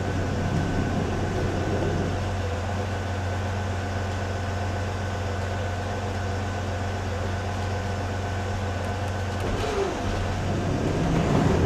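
Inside the moving Ultravan motorhome: its Corvair engine running steadily with a constant metallic grinding from the front wheels, sounding like metal-to-metal brakes. The cause is a front brake drum's edge rubbing on the backing plate after the plate was hammered for a-arm clearance.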